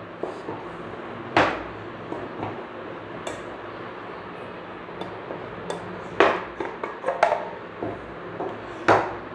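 Small wooden boxes and the pieces inside them being handled on a table: scattered knocks and clatters, the loudest about a second and a half in, around six seconds and near the end, with lighter clicks between.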